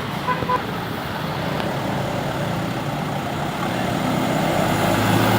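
Roadside traffic with a heavy engine drawing closer, its noise growing steadily louder; a few short high beeps sound about a third of a second in.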